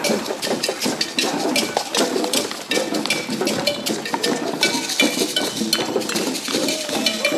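Irregular clinking and clattering of cups and dishes, many quick clinks with short rings, over murmuring voices.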